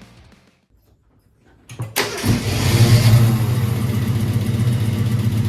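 Classic Ford Mustang engine cranking briefly, catching about two seconds in, revving once and settling into a steady idle. The car now starts with its bad battery cable replaced.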